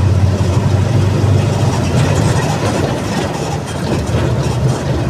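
Mercedes-Benz OF 1722M bus diesel engine running with a steady low hum, easing slightly about three and a half seconds in and then picking up again.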